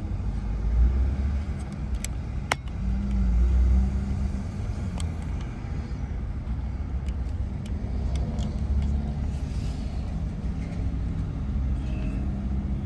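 Car driving on city streets heard from inside the cabin: a steady low road and engine rumble with a faint hum, and a couple of sharp clicks a few seconds in.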